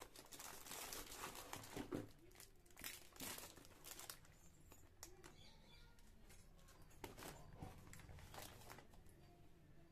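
Faint crinkling of plastic grocery packaging, sunflower-oil pouches and biscuit packs, as hands rummage through them in a cardboard box. The rustling is busiest in the first four seconds and again around seven to eight and a half seconds in.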